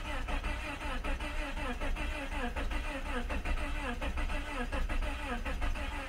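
Starter cranking a Honda Accord's four-cylinder engine slowly, in an even rhythm of about three strokes a second, without it starting. The engine is partially flooded with fuel, and the battery is weakening.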